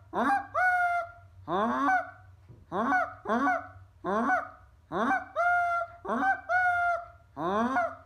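A person mouth-calling Canada geese, hand cupped over the mouth: a fast run of about a dozen goose honks, some in quick pairs, each breaking from a low note up to a higher held note.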